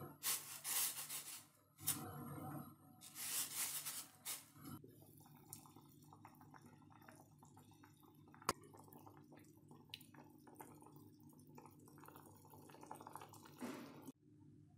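Raw chicken drumsticks dropped into a saucepan of water, splashing three times in the first few seconds. Then the pot boils with a fine, steady bubbling, with one sharp click partway through.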